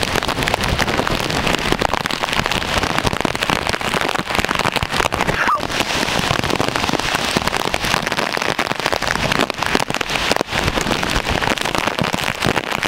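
Heavy tropical-storm rain pouring down and pelting the microphone in strong, gusting wind: a loud, steady, dense rush full of crackles.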